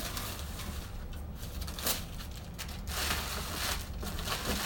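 Green plastic packing bag and cardboard shipping box rustling and crinkling in irregular bursts as they are rummaged through.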